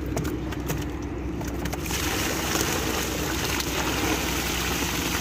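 Water pouring and splashing out of a woven bamboo fish basket as it is lifted from the mud, starting about two seconds in, with a few small knocks before it. A steady low drone runs underneath.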